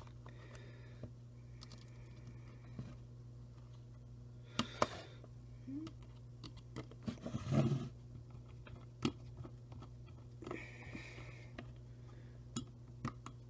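Faint, scattered clicks, taps and scrapes of a tiny Phillips screwdriver and small screws being worked on a camcorder's plastic casing, over a steady low hum.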